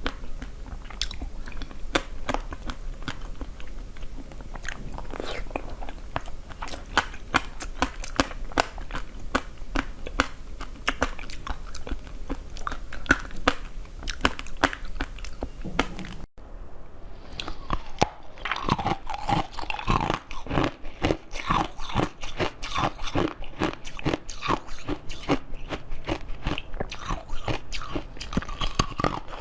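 A person biting and chewing food, with crunching and many small, irregular crackling clicks. An abrupt cut comes a little past halfway, after which the chewing sounds change in character.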